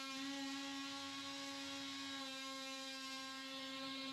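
Milwaukee cordless cutting tool running with a steady motor hum as it cuts through drywall along a traced line. Its pitch shifts slightly as the load changes, about a third of a second in and again about two seconds in.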